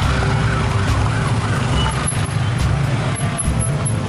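Several motorcycles idling close by: a steady, low engine sound.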